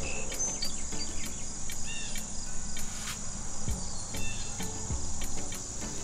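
Steady, high-pitched chirring of crickets, with a few short faint chirps over it.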